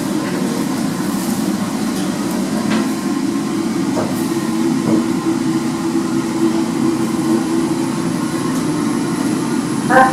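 KONE EcoDisc gearless traction lift running, a steady hum and rumble heard inside the moving car. A brief pitched tone sounds near the end.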